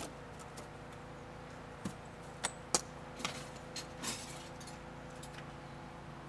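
A handful of short, light clinks and knocks, like small hard objects being handled, between about two and four and a half seconds in, over a faint steady hum.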